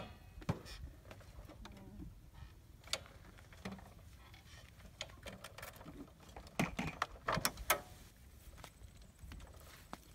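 A few scattered clicks and knocks from a parked motorbike being handled as its riders climb off, with a cluster of louder ones about seven seconds in.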